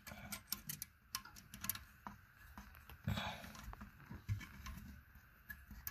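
Faint, scattered small clicks and scrapes of a nut being hand-tightened onto a toilet tank bolt under the porcelain tank, with a short scrape about three seconds in.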